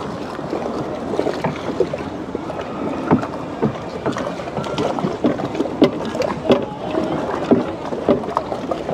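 Irregular knocks and clatter of riders and paddles in a loaded canoe against its hull, over a steady background murmur.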